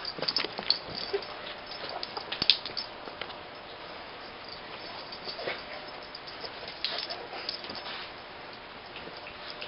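Scuffling and clothing rustling as a person is held face-down on a carpeted floor with his arms pinned behind his back, with scattered brief sharp clicks and scrapes, the loudest about two and a half seconds in.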